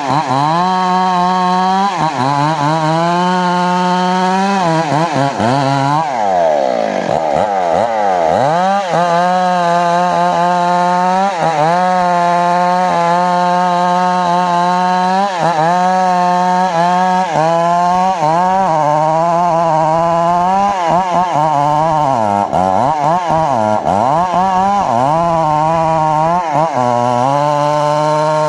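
Engine-driven saw cutting johar wood: the engine runs fast and its pitch dips again and again as the blade bites into the wood, then recovers.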